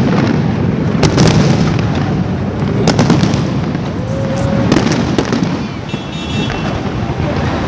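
Fireworks going off: a string of sharp bangs at irregular intervals of about one to two seconds, over a steady crackle of bursting shells.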